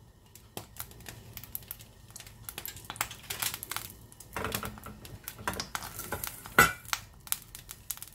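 Hot ghee crackling and spitting in a stainless steel pan: irregular little clicks that grow thicker from about three seconds in, with one louder knock about two thirds of the way through.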